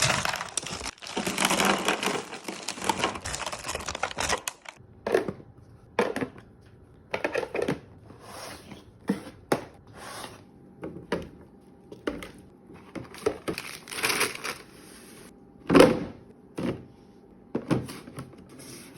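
Plastic packaging of frozen food rustling and crinkling for about four seconds. Then comes a string of separate knocks and clunks as items and plastic storage bins are set down and slid into place in a freezer.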